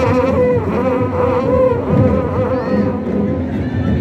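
Traditional procession band: a wind instrument plays a wavering melody that dwells on one note, over a dense low din of drumming and crowd.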